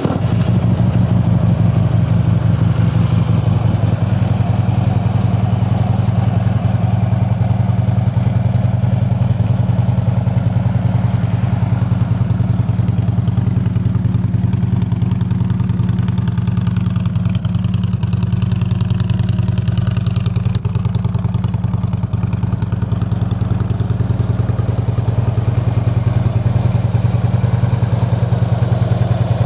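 Harley-Davidson 103-cubic-inch fuel-injected V-twin idling steadily just after being started, with an even low throb. It is a good healthy sound.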